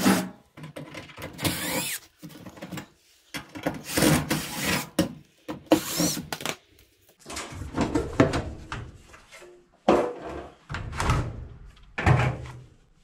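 Cordless drill/driver backing screws out of sheet metal in several short bursts, its motor whine rising as it spins up, mixed with the rattle of the metal blower-housing cover being handled.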